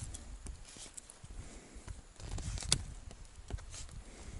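Willow poles and twigs being handled and trimmed: scattered sharp snaps and clicks, one loudest about two and a half seconds in, over low thumps and rustling.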